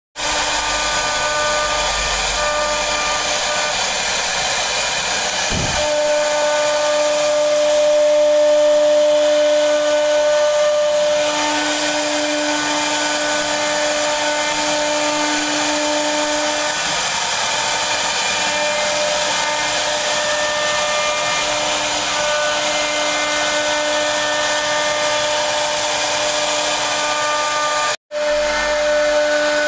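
CNC router spindle running with its bit cutting a carved pattern into a wooden panel: a steady whine with several held tones over the hiss of the cut. It breaks off for an instant near the end.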